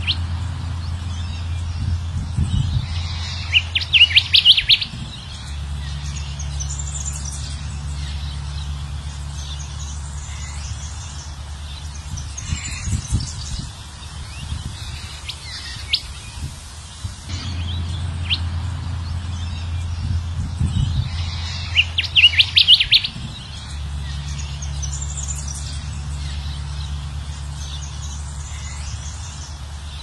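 Recorded kancilan emas (golden whistler) song played as a looped lure track: scattered high chirps and calls, with a loud burst of rapid notes about four seconds in that comes back around twenty-two seconds when the loop repeats, over a steady low hum.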